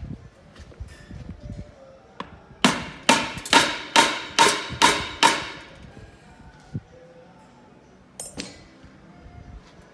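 A hammer strikes metal seven times in quick succession, about two blows a second, each with a short metallic ring, on a Volkswagen manual gearbox being taken apart. A single lighter knock follows near the end.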